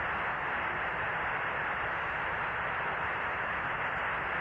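Steady radio static hiss on the Apollo 11 air-to-ground voice link while the lunar module Eagle's signal has dropped out, which the commentators guess may be the descent engine's plume getting in the way of communications.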